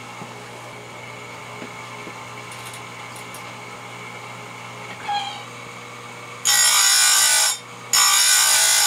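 Electric chainsaw-chain grinder with its motor running steadily, then its wheel grinding a cutter tooth of the semi-chisel saw chain in two loud, harsh passes of about a second each near the end.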